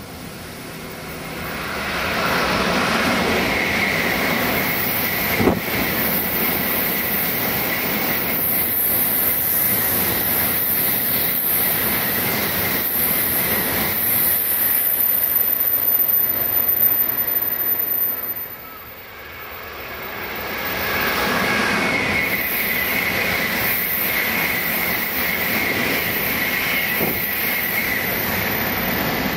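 Tokaido Shinkansen high-speed train passing at speed: a loud, steady rush of wheels and air with a faint high whine, and a single sharp crack about five seconds in. The noise dips briefly past the middle, then a second rush of train noise builds and holds to the end.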